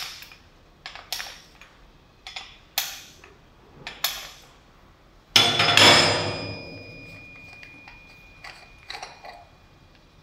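A steel ring spanner clinks against the metal end cap of a pneumatic rivet-nut gun as the cap is loosened in short turns, about one sharp clink a second. About five seconds in comes a loud metal clank that keeps ringing for about two seconds, then a few lighter clicks as the cap comes free.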